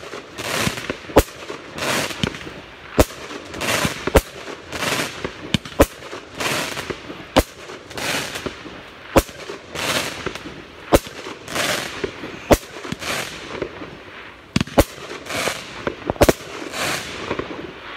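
A multi-shot firework cake firing: sharp bangs about once a second, with the hiss and crackle of bursting stars between them. It stops a little before the end.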